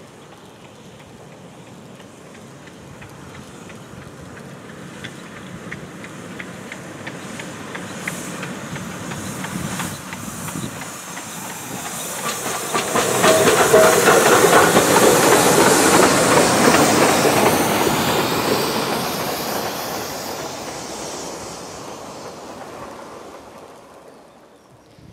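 SNCF 231G 558 Pacific steam locomotive passing. The sound builds slowly as it approaches, is loudest about halfway through as it goes by with rapid clatter of wheels over the rail joints and a steamy hiss, then fades away.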